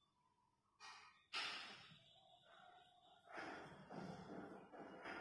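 A woman's breathing close to the microphone: a sudden sigh-like breath out a little over a second in that fades away, then softer breaths, all faint.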